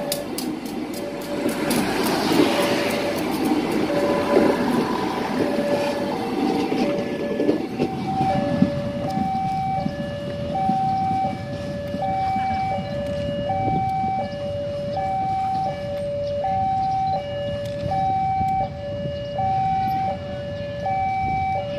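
INKA-built diesel commuter train passing close, its wheels rumbling and clicking over the rails, fading after about seven seconds. Throughout, a level-crossing warning alarm sounds two alternating tones, high and low, switching about once a second and louder in the second half.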